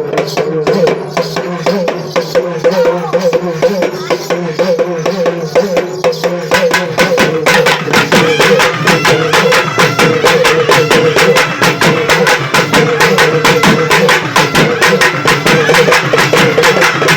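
Urumi melam ensemble playing: rapid, dense drum strokes over a wavering droning tone, the 'alaral' roar of the urumi drum. About six and a half seconds in the beating grows denser and louder.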